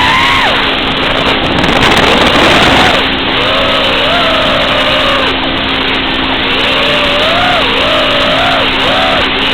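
5-inch FPV racing drone's brushless motors whining, the pitch rising and falling as the throttle is worked in flight, over a steady low hum.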